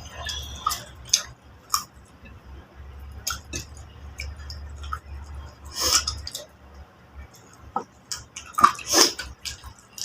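Eating sounds at a meal: scattered small clicks and clinks of dishes with chewing, and a couple of louder noises about six and nine seconds in.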